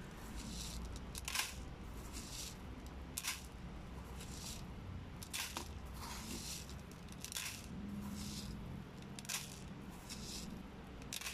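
A metal spoon scraping and scooping dry cat kibble out of a plastic bowl, a faint rattling scrape about once a second.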